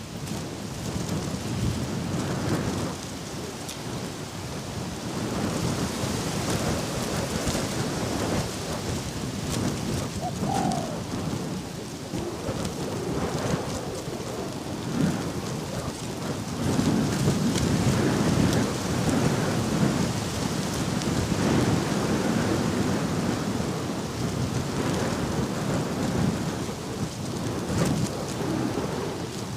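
Strong wind buffeting the microphone: a low, uneven rushing that swells and eases, strongest in the second half. A short pitched note comes through about ten seconds in.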